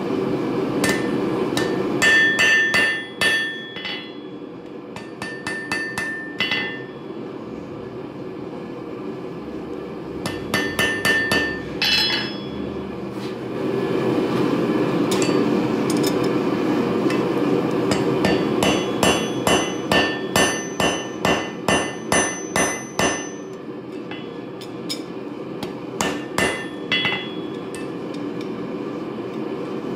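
Hand hammer striking a hot railroad spike on a steel anvil in bursts of blows, the anvil ringing after each strike. Past the middle comes a long run of quick blows, about three a second. A steady rushing noise runs underneath.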